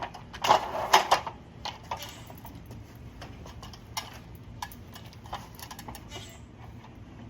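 Light metal clatter and clicks from handling a window screen frame and tools during rescreening: a brief rattling burst about half a second in, then scattered single ticks.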